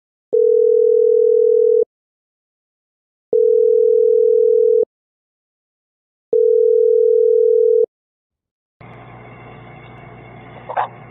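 Three identical steady electronic tones, each about a second and a half long with equal silent gaps, closing a mock Emergency Alert System Amber Alert as its end-of-message signal. Near the end, a steady low background hum comes in, with one brief rising chirp.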